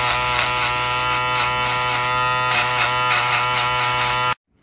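Electric hair clippers buzzing steadily right at the microphone while trimming around the sideburn and ear; the buzz cuts off suddenly near the end.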